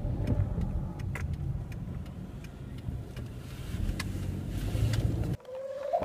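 Low rumble of a car heard from inside the cabin, with a few faint clicks, cutting off suddenly near the end.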